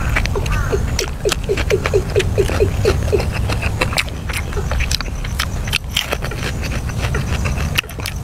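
Close-up eating sounds: crisp crackles and clicks of fried shrimp and grilled meat being handled, bitten and chewed. In the first three seconds an animal calls in the background, a quick series of about five short notes a second. A steady low rumble runs underneath.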